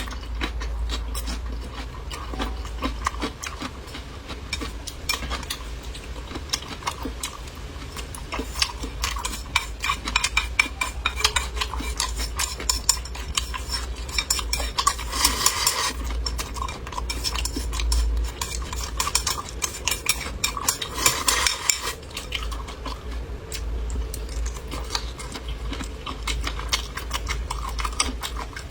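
Eating utensils clicking and scraping against a bowl and dishes during a meal, with many quick clicks over a low steady hum.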